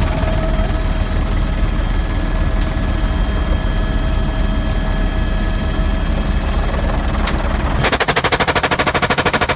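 Eurocopter AS350 B2 A-Star helicopter running steadily, its rotor and turbine filling the cabin. Near the end an M249 SAW opens up in a long burst of rapid automatic fire, evenly spaced at roughly a dozen shots a second.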